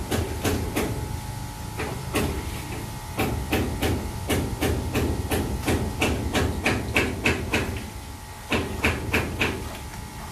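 Water sloshing and splashing in a steel sink as a wet, lathered long-haired cat is scrubbed and lifted in the soapy water: a quick, uneven run of wet splashes, about two or three a second, briefly letting up about eight seconds in, over a steady low hum.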